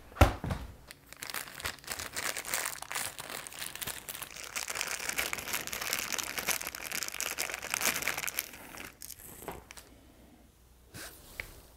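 A single knock of a cardboard speaker box, then plastic packaging crinkling and rustling for several seconds as a packed tower speaker is unboxed and handled. The rustling dies away about three seconds before the end, leaving only a few faint ticks.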